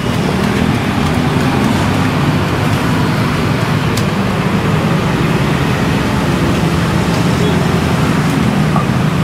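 Steady street traffic noise, with the wet scraping and mashing of a stone pestle grinding green chili sambal on a flat stone mortar (cobek).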